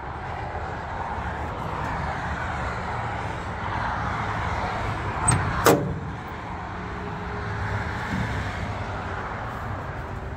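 A heavy-equipment engine running steadily. About halfway through come two sharp metal clanks, the second louder.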